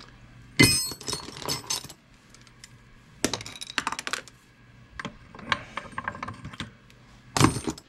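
Metal sockets and hand tools clinking and clattering as they are picked through and tried on a fastener to find the right size. The sound comes in bursts of small clicks, with louder clatters about half a second in and near the end.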